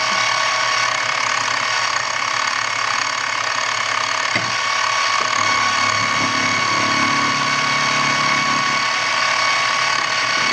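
Milling machine cutting an aluminum block: a steady mechanical whine with several constant high tones, the spindle running under cut.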